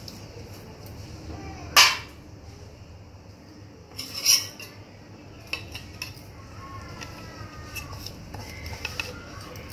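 Stainless-steel bowl and spoon clinking against a steel mixing bowl while curd is scraped in for a chicken marinade: two sharp clanks, about two and four seconds in, then a few lighter taps.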